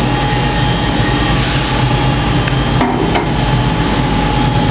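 Vibratory cleaning machine for blind rivets running, rivets rattling fast and steadily on its vibrating mesh screen over a low hum. The shaking knocks loose slag and metal particles, which fall through into the collection tray.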